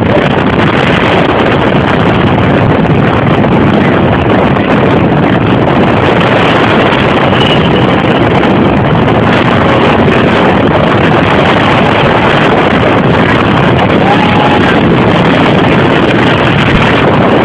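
Hurricane simulator booth's fans blasting air: a loud, steady rush of wind buffeting the microphone.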